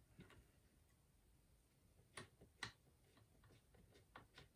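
Faint, scattered clicks and ticks of a precision screwdriver working small screws into a plastic remote control casing, with two sharper clicks about two seconds in and a run of quick light ticks near the end.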